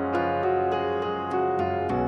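Instrumental background music led by piano, a steady run of notes at an even pace.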